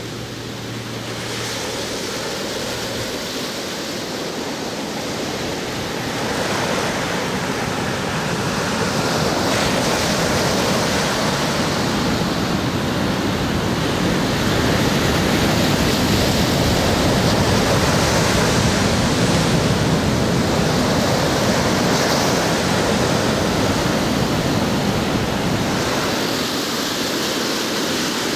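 Pacific surf on a sandy beach: waves breaking and washing up the shore in a steady rush, the wash building over the first several seconds and staying loud, with a little wind.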